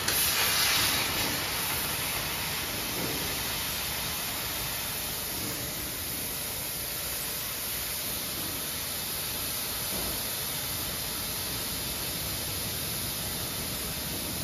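Gas cutting torch on a profile-cutting machine hissing steadily as it burns through thick steel plate, louder over the first second or two and then even.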